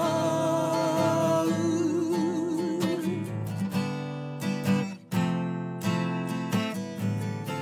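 Strummed acoustic guitar under a held sung note with vibrato that ends about three seconds in; the guitar then carries on alone, strumming steadily, in a short instrumental break.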